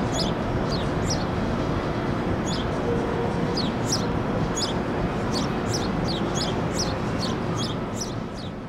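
Steady city street rumble with a bird chirping over it again and again: short, falling, high chirps, about two a second from the middle on. The sound fades out near the end.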